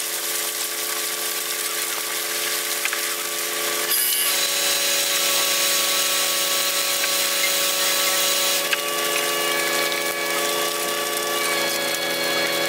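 Deck machinery on a salmon purse seiner running with a steady mechanical whine as the net is hauled aboard. Higher tones join the whine about nine seconds in.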